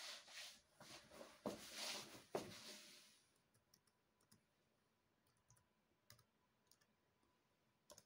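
Keys being pressed on a Dell Latitude E6420 laptop keyboard, typing in a code: scattered short, faint clicks. There is a rustling hiss with two sharper, louder taps in the first three seconds.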